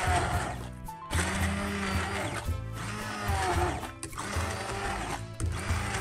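Electric immersion blender running in a steel pot, pureeing chunky potato, leek and celery soup, heard under background music.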